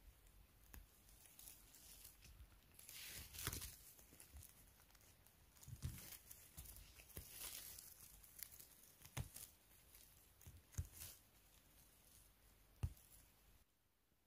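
Faint rustling and crackling of forest-floor litter being disturbed during mushroom picking, with a few sharper snaps scattered through it. It cuts out suddenly near the end.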